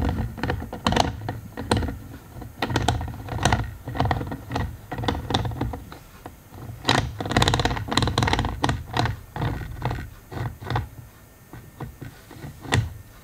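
Irregular plastic clicks and knocks of a G1200 digital microscope being handled: the camera is moved down its stand to zoom in fully and the focus is adjusted.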